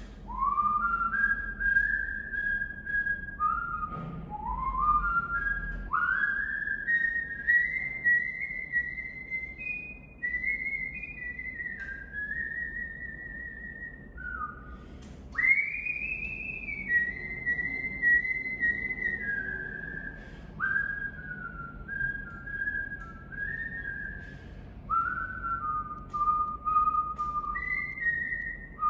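A person whistling a slow tune: single clear notes that slide up into each phrase and step down between them.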